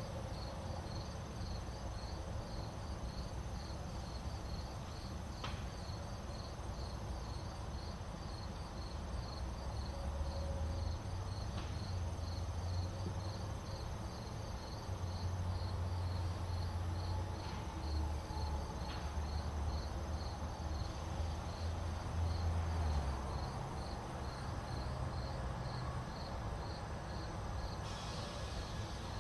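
Insects chirping in a steady, evenly repeating pulse. A low rumble comes in about ten seconds in and fades out again about twenty-three seconds in.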